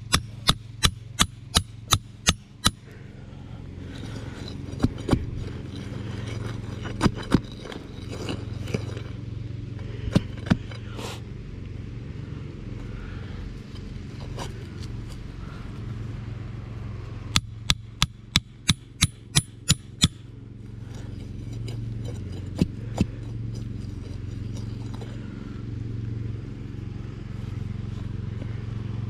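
Hammer striking the head of a steel rebar stake, driving it into soft dirt to make holes, in quick runs of sharp metallic blows: a run at the start, a few single blows, a run of about nine blows in the second half and two more after it. A steady low hum runs underneath.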